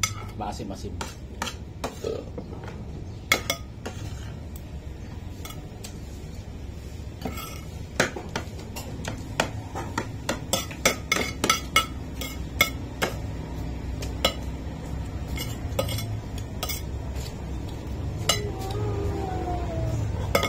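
Metal spoon clinking and scraping against ceramic plates and bowls during a meal: many short, irregular clinks, busiest around the middle, over a steady low hum.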